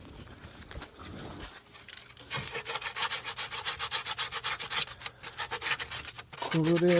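Rusty metal surface being scraped and scrubbed by hand, cleaning it to bare metal for a good electrical ground. Quiet handling at first, then rapid back-and-forth scraping strokes from about two seconds in, several a second.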